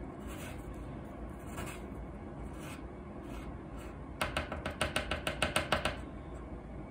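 Spatula scraping raw urushi lacquer across a glass plate, gathering it into the middle. About four seconds in comes a quick, louder run of scrapes, roughly seven a second, lasting under two seconds.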